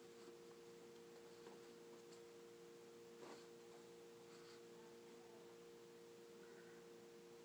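Near silence: room tone with a faint, steady two-note hum and a few faint small clicks, one about three seconds in.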